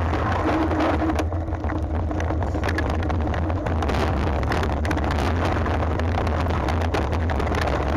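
Mountain bike descending a rough trail: steady wind rumble on the camera microphone, with constant rattling and knocking from the bike over the rough ground.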